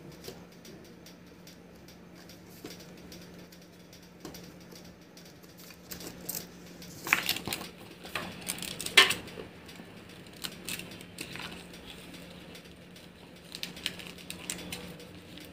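Clear plastic laminating film crinkling and crackling as its backing liner is peeled back and the film is smoothed by hand onto an acrylic sheet. The crackling comes in a few sharp bursts around the middle and light clicks elsewhere, over a low steady hum.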